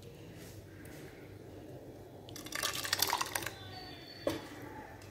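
Thick coconut-milk payasam ladled into a pot: a pour and splash of liquid about two and a half seconds in, lasting about a second, then a single short knock near the end.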